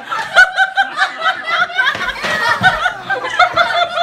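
Hearty high-pitched laughter in quick breathless bursts, about four or five a second, with no pause.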